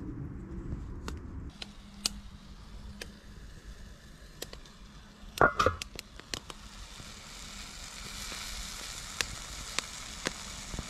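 Sliced mushrooms frying in a pan over a small wood-burning stove, sizzling steadily through the second half. Before that there are scattered sharp clicks, and about halfway a brief loud metal clank of a pot lid.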